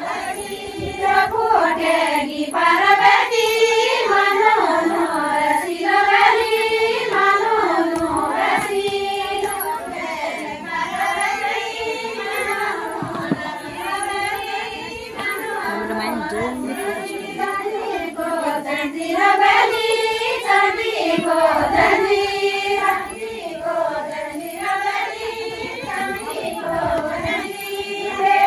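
A group of women singing a Garhwali folk song together, a rising and falling melody in phrases a few seconds long.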